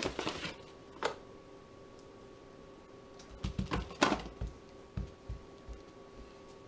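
Paper flour bag rustling as a hand reaches in for flour, with a clustered rustle and knock about three and a half to four seconds in, then soft low thumps of hands pressing and patting biscuit dough on a floured paper sheet over the countertop. A faint steady hum runs underneath.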